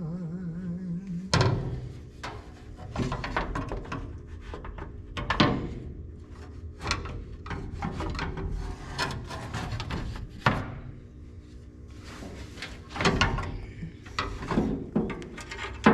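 A fan shroud being slid and worked into place around a radiator: repeated scraping and rubbing with sharp knocks, loudest about a second in, at about five seconds and near the end.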